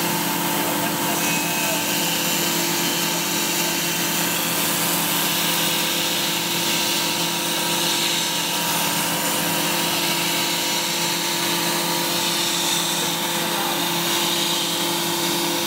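Sunglass lens-processing machine running steadily, a constant motor hum with several fixed tones under an even hiss.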